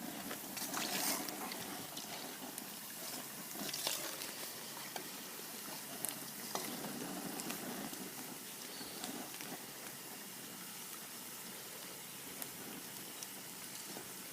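Hot cooking oil sizzling and bubbling in a pot as onion rings deep-fry, with a few light clicks.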